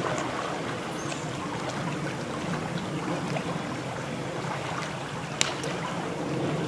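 Steady rush of flowing creek water, with a single sharp click about five seconds in.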